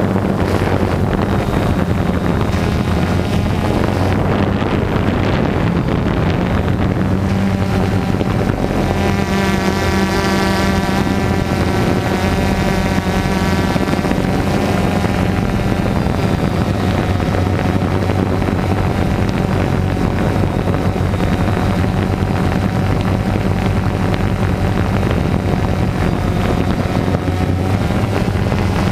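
Multirotor drone's electric motors and propellers running with a steady drone-like hum, recorded on the drone itself, with wind noise on the microphone. A higher whine from the motors comes in for a few seconds near the middle.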